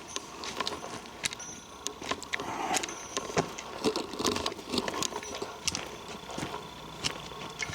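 Footsteps crunching through dry leaves and twigs on the forest floor: a string of irregular crackles and snaps.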